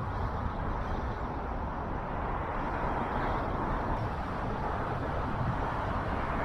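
Steady road noise from a car driving along a city street: an even rumble of tyres and engine, with the sound of surrounding traffic.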